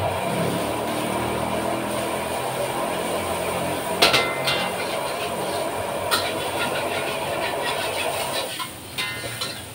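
Fried rice cooking in a wok over a gas burner: a steady sizzling rush, with sharp clanks of the metal spatula on the wok about four seconds in and again about six seconds in. The rush falls away near the end.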